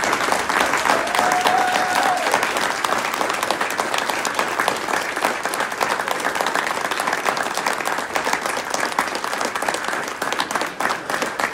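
Audience standing and applauding, dense sustained clapping throughout, with a short held high note about a second in.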